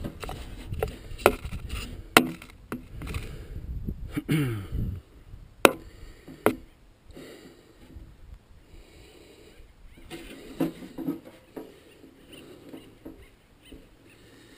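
Sharp knocks and clicks of hand work at a windmill's open gearbox head, with a brief creaking squeal about four seconds in. After that the sound settles to quieter shuffling and breathing.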